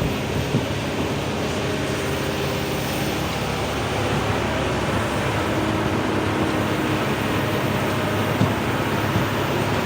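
Heavy excavator's diesel engine and hydraulics running steadily under load, with a few brief knocks.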